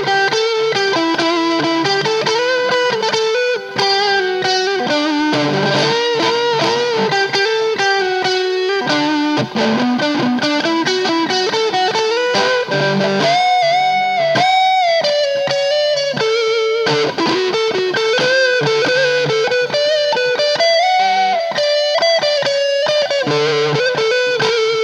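Stratocaster-style electric guitar with single-coil pickups played through an Audio Baron TG-30 30-watt guitar amplifier on its crunch channel at low gain, giving a lightly overdriven tone. The playing is a run of single-note licks and chords, with string bends about halfway through.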